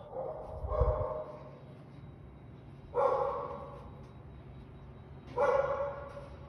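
An animal's loud, pitched calls, bark-like and starting sharply: a pair in the first second, then single calls about three seconds in and near five and a half seconds, each fading over about half a second.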